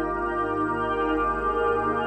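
Background music of long, held, overlapping tones with no beat.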